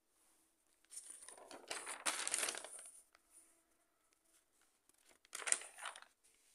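Paper notebook pages being turned by hand: two rustling page turns, the first longer, the second about three seconds later and shorter.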